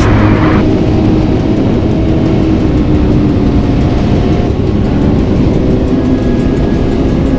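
Motorcycle engine running steadily at speed, with heavy wind rumble on the action camera's microphone.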